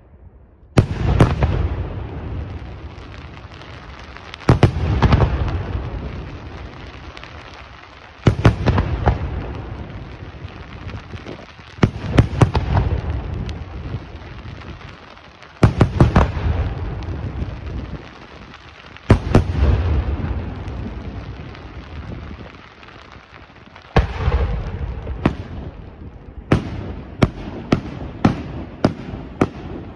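Aerial firework shells bursting in the sky, one heavy burst about every three to four seconds, each trailing off slowly. Near the end comes a quicker run of sharp cracks, several a second.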